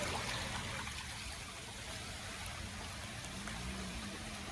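Floodwater running steadily after heavy rain, an even rushing noise.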